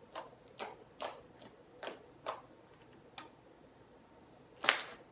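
Sticky slime being squeezed and pressed by hand, making a series of sharp pops and clicks as trapped air bursts: about seven quick clicks over the first three seconds, then one louder pop near the end.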